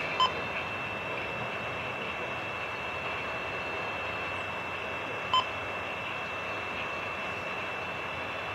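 Steady radio hiss with a faint, constant high-pitched whine, broken by two short electronic beeps about five seconds apart.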